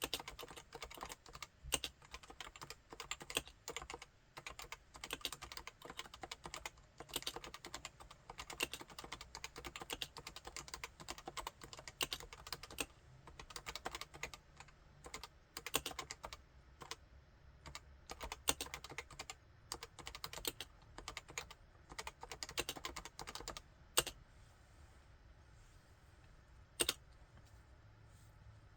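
Typing on a Topre Realforce 87UW tenkeyless keyboard with Topre electrostatic capacitive switches: fast, continuous keystrokes. Near the end the typing stops after one louder stroke, with a single further keystroke a few seconds later.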